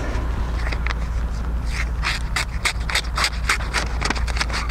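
Herbertz 585518 knife blade slicing through a sheet of paper held in the hand: a few single strokes, then from about two seconds in a quick run of short strokes, about four a second. This is a paper-cut test of the edge after chopping work.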